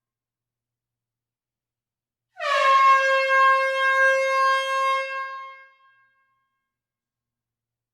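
A single air-horn blast in a closed room, starting about two and a half seconds in: a brassy, steady, high-pitched tone that dips slightly in pitch at the onset, holds for about three seconds and fades away.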